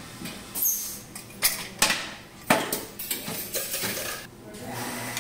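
Metal clinks and knocks of a small metal-grilled exhaust fan and a screwdriver being handled inside a steel equipment cabinet, several sharp clatters in the first three seconds. A steady hum comes up near the end.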